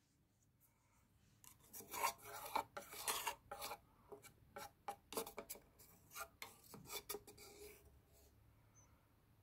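Faint, irregular scraping and rubbing strokes, starting about a second and a half in and dying away near the end.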